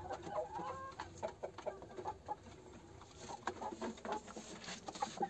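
Hens clucking softly, a scattering of short calls.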